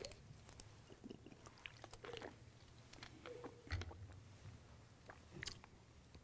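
Faint handling of a plastic water bottle and a man sipping from it: small scattered clicks and crackles, with a soft thump a little before four seconds in.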